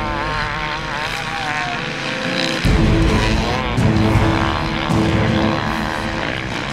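Several motocross bike engines revving, their pitch rising and falling, then a louder burst of bikes accelerating a little before halfway, with music underneath.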